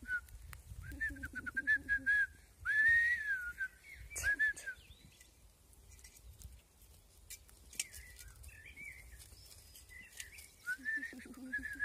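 A boy whistling a run of short, arching notes to call birds, loudest over the first five seconds, then a few fainter whistled notes near the end.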